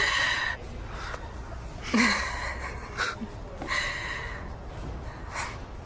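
A person breathing out audibly in four short breaths, a second or two apart, over a low background hum.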